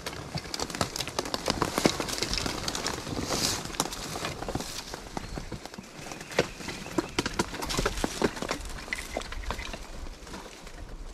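A wheelchair rolling through brush, its wheels crushing twigs and dry branches in a dense run of crackles and sharp snaps that keeps going without a break.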